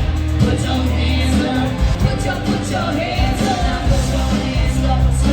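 Pop music with a lead singer over a steady bass line.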